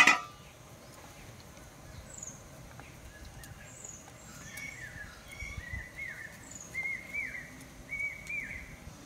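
Birds calling in the background: a run of short, arched chirps repeated about once a second, with thin, high, downward chirps now and then. A single sharp knock comes at the very start, like a knife tapping a wooden board.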